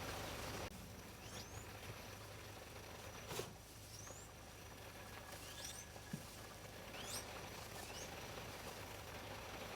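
Meat chickens peeping faintly: about six short, high chirps that rise sharply in pitch, spaced a second or two apart, over a low steady hum. A single soft knock comes about a third of the way in.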